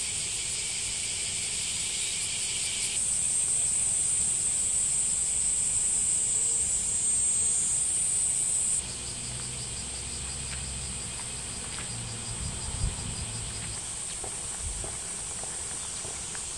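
A steady high-pitched insect chorus: a bright whine with a pulsing buzz beneath it. It changes abruptly about 3 seconds in and drops quieter about 9 seconds in. A few faint knocks come near the end.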